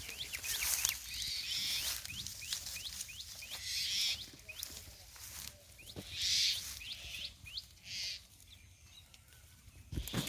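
Small birds chirping over and over, short upward-sweeping chirps several a second. A few brief hissy bursts and one or two faint knocks are mixed in.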